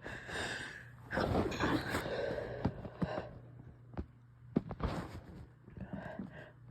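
A person's breathy inhales and sniffs while working up to a sneeze, with a louder, rough burst of breath about a second in and a few sharp clicks.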